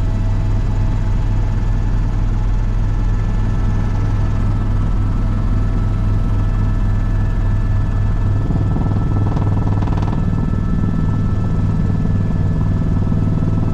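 Helicopter cabin noise in flight: the steady low beat of the main rotor with a steady whine of engine and gearbox above it. About nine seconds in the low rumble shifts and a brief buzz is heard.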